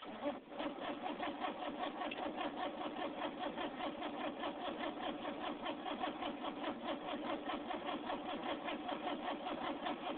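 Motorcycle engine coming in abruptly, then running at idle with a rapid, even pulsing beat.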